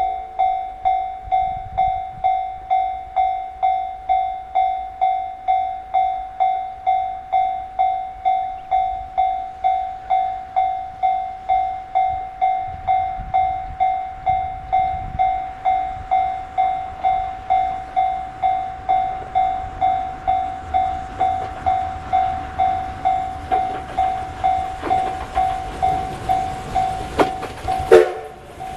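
Level-crossing warning bell ringing steadily, a little under two dings a second. Over the last several seconds the D51 steam locomotive's approach grows louder under the bell, with sharp exhaust beats, ending in a loud burst as it reaches the crossing.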